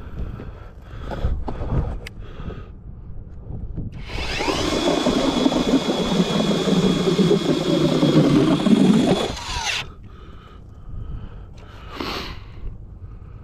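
Eskimo E40 electric ice auger drilling a hole through the ice: about four seconds in it spins up with a rising whine, runs steadily under load for about six seconds, then winds down and stops.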